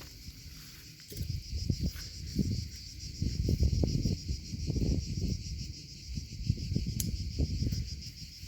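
Insects chirping in a steady, rapidly pulsing high trill, over irregular bursts of low rumble on the microphone that start about a second in and are the loudest part.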